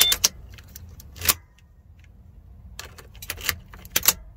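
Car keys jangling on their ring, with sharp clicks from a 2015 Subaru Forester's ignition switch as the key is turned off and back on, in a scattered handful of clicks and rattles that bunch together near the end. The key is being cycled because the replacement gauge cluster's immobilizer has locked out the key and the car won't start.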